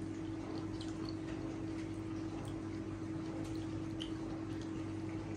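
A steady low hum, with faint scattered soft clicks of fingers working rice and fish by hand.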